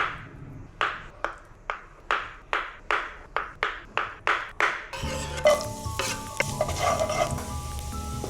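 A run of sharp, ringing taps, two to three a second and quickening slightly. About five seconds in they cut to a steady sizzle of food frying in a pan, with a few utensil clinks.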